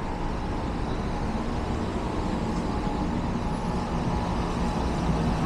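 City street traffic: a motor vehicle's engine running nearby as a steady low rumble that grows slowly louder.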